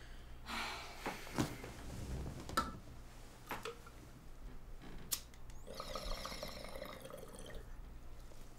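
Water bubbling in a glass bong as a hit is drawn through it, for about two seconds in the second half, after a few sharp clicks and knocks.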